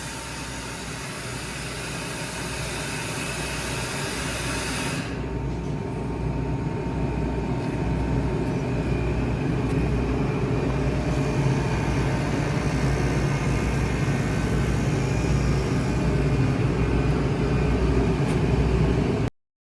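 A 30 hp Kaeser AS 30T rotary screw air compressor running. A high hiss drops away about five seconds in, and the low running noise then grows steadily louder before cutting off suddenly near the end.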